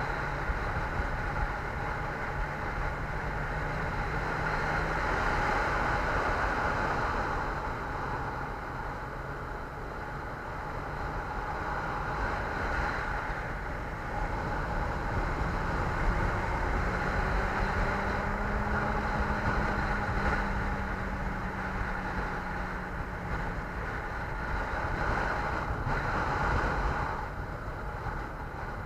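Steady wind rush and road noise of a vehicle on the move, slowly swelling and easing in level.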